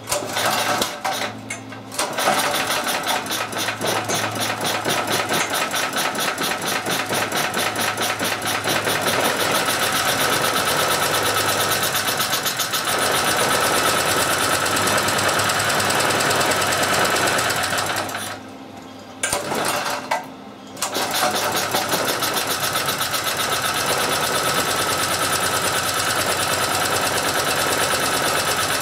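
A portable generator's small engine, fuelled with hydrogen and with its exhaust recirculated into the intake, starts and runs with a fast, even firing beat. It stumbles briefly just after catching. About two-thirds of the way in it cuts out twice for about a second each time, then picks up and runs steadily again.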